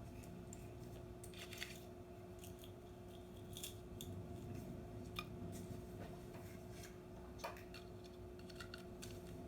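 Scattered crackles and snaps of objects being crushed under a slowly rolling car tyre, over a steady low hum.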